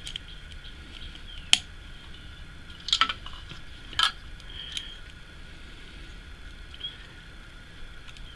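Hard plastic parts of a Gunpla kit's machine gun accessory clicking as they are handled and folded: a few separate sharp clicks, the clearest about one and a half seconds in and about four seconds in, over a faint steady hiss.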